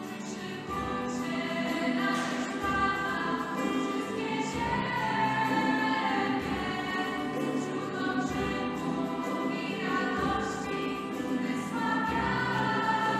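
Music: a choir singing a Polish Christian worship song, the voices coming in about a second in.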